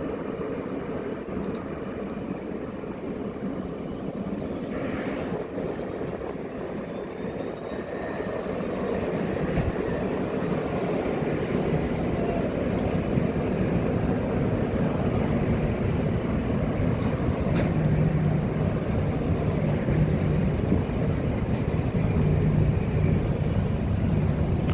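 Deep, steady rumble of a large passing vehicle, building gradually louder, with a low steady hum joining it in the last few seconds.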